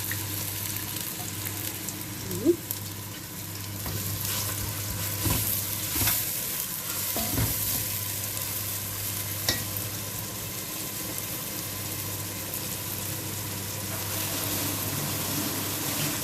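Onion sizzling as it fries in hot oil in a pot, a steady hiss, while it is stirred with a spoon that knocks against the pot a few times.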